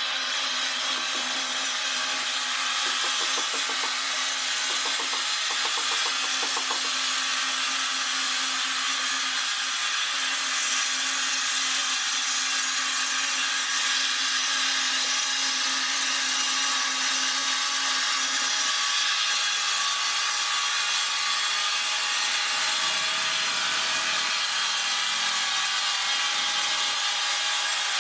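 Power sawing machine cutting ironwood, a steady sawing noise without pause. A low hum runs under it and stops about two-thirds of the way through.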